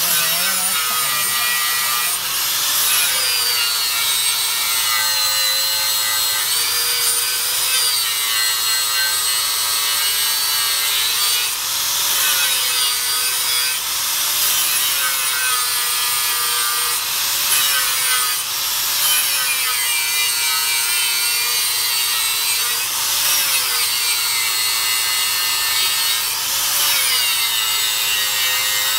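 Angle grinder with a flap disc grinding a metal sheet: a steady, high-pitched hiss of the abrasive on the metal over the motor's whine. The whine wavers up and down every few seconds as the disc is pressed and swept across the surface.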